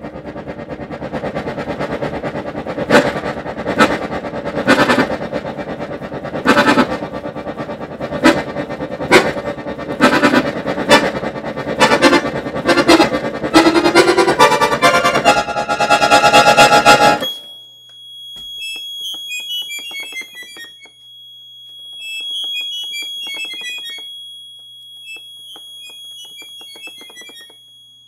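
Beltuna piano accordion played loudly in full, dense chords with repeated heavy accents that come faster and faster, then cut off suddenly about 17 seconds in. After that it plays quietly in the high register: a held high note and short falling runs of quick high notes.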